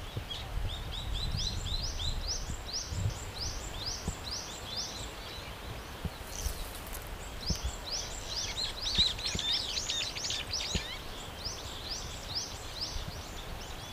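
Brown-eared bulbuls calling: short, high rising notes repeated several a second, with a denser flurry of overlapping calls in the middle, over a low outdoor rumble.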